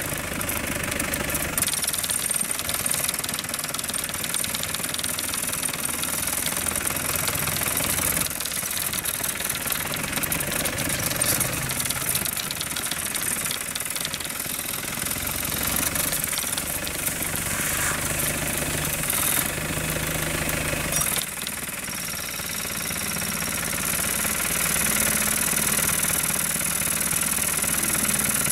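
A vehicle engine idling steadily, with a hiss over it.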